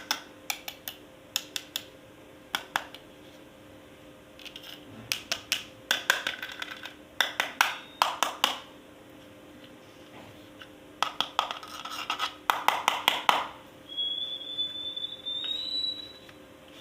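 Hard plastic toy pieces being handled, with quick clusters of clicks and taps. Near the end a thin, high, slightly rising tone sounds for about two seconds.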